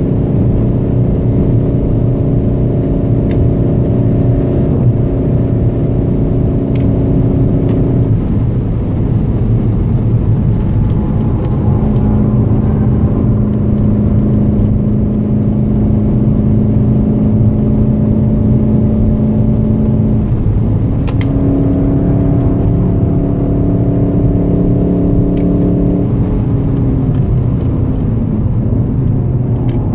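Cabin drone of a stock Golf 7 GTD's 2.0-litre four-cylinder turbodiesel under way, over steady road and tyre noise. The engine note holds one steady pitch for long stretches and shifts to a new pitch a few times.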